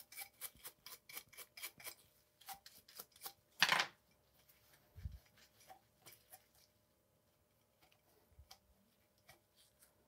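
Plastic-bristled brush scrubbing the splines of a crank spindle in quick scraping strokes, about four a second, with one louder, longer scrape near four seconds in. A low thump follows about a second later, then fainter rubbing as a cloth rag wipes the metal.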